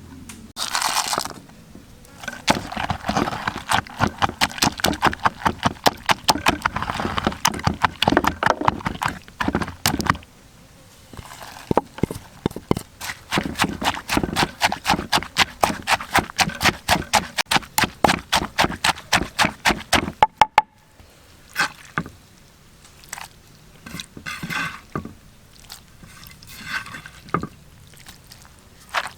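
Close-up eating sounds: rapid wet clicking and smacking of chewing, several clicks a second, in two long runs, then slower, scattered clicks and short noisy bursts.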